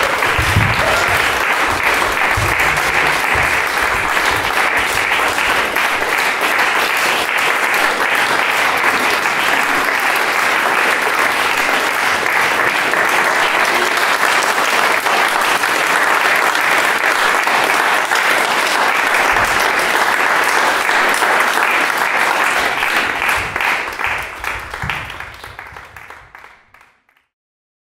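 Audience applause, a dense, steady clapping that fades out over the last few seconds.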